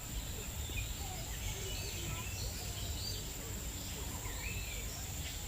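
Bird-park ambience: scattered short chirps and whistles of other birds over a steady low rumble and a constant high whine.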